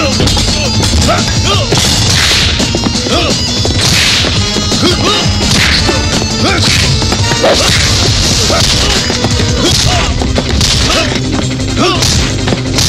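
Film fight sound effects: a rapid string of punch and kick whacks with whooshes of swung fists and legs.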